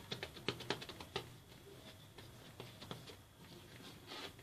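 Wooden rolling pin working a block of laminated croissant dough on a stone countertop: a quick run of light clicks and taps in the first second, then sparser taps, and a brief brushing rustle of a hand over the dough near the end.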